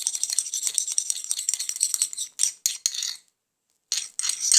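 Spoon stirring a shampoo-and-salt slime mixture in a small bowl: rapid clinking and scraping against the bowl. It stops a little past three seconds in and starts again near the end.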